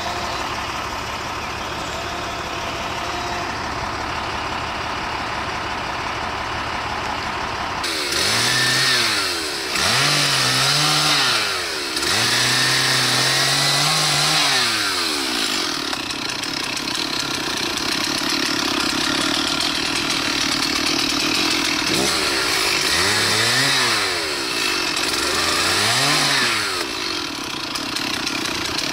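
Steady noise for several seconds, then a small engine is revved up and down several times, holding high revs for a few seconds at a time before dropping back.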